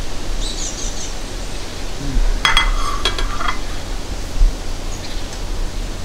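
A ceramic dinner plate clinks twice, about half a second apart, with a brief ringing tone, over a steady background hiss.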